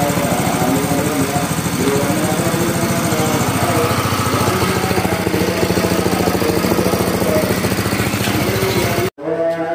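Small single-cylinder petrol engine driving a multifunction grass chopper, running steadily on a test run. The sound cuts off abruptly near the end.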